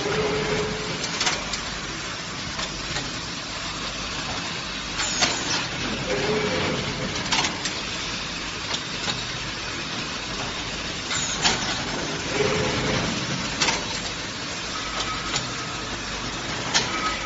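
Mushroom sawdust bag filling machine running, with steady mechanical noise and sharp clacks every few seconds. A short hum recurs about every six seconds as the machine repeats its filling cycle.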